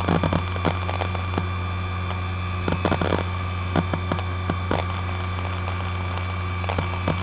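ExcelStor Technology CT210 10.2 GB hard drive spinning with a steady low hum while its heads seek in irregular clicks and short chatters, reading data as Windows XP boots from it.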